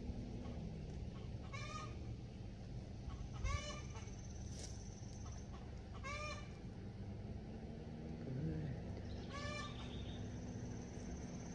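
A chicken calling four times, short calls a few seconds apart, over a steady low hum. A single thump about three and a half seconds in.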